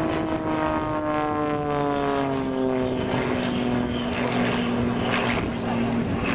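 XtremeAir XA41 (Sbach 300) single-engine aerobatic propeller plane flying past, its engine-and-propeller note falling steadily in pitch over about five seconds and then levelling off lower.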